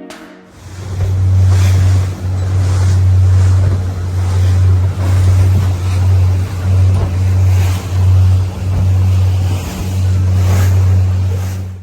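Boat motor running steadily with a low hum, under a loud rush of wind and water that swells and dips every second or so, as on a boat under way.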